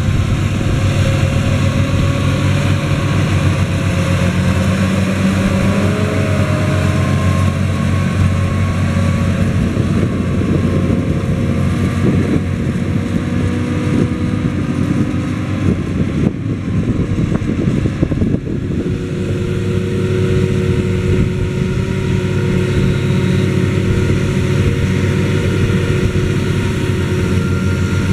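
John Deere 7280R tractor engine running steadily under load as it drags a laser-controlled levelling blade through loose soil, its pitch rising and falling a little.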